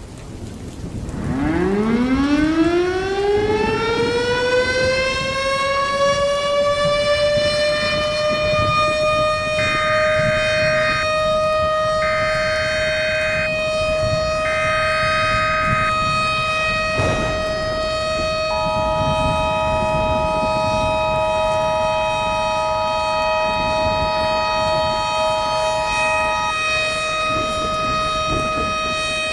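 Civil defense tornado siren winding up from a low pitch about a second in, rising over a few seconds to a steady high tone that it then holds: the steady alert signal for a tornado warning.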